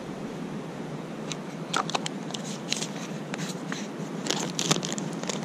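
Hands handling small plastic fishing tackle: scattered light clicks and rustles over a steady hiss.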